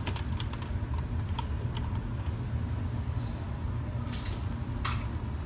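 Light clicks and taps as the water alarm system's plug-in repeater is handled and powered on: a quick cluster in the first second and a half and two more near the end, over a steady low hum.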